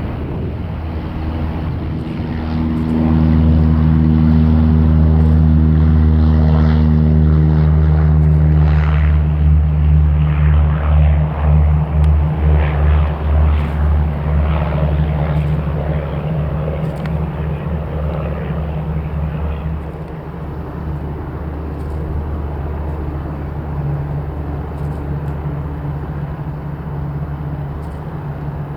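Jet engines of a Boeing 787-9, Rolls-Royce Trent 1000s, at high power as the airliner departs: a loud, steady rumble that swells about three seconds in, wavers and pulses for several seconds, then eases off.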